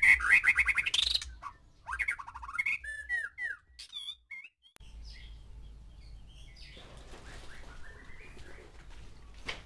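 White-rumped shama singing: a loud run of varied whistled phrases, fast trills and quick rising and falling notes that stops about four seconds in. After that only faint chirps over a low hum, with a short click near the end.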